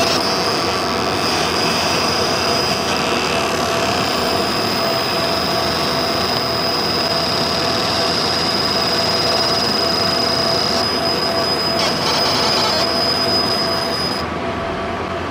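CO2 laser marking machine running as it engraves leather: a steady loud rush with a high, even whine that cuts off about fourteen seconds in, when the marking stops.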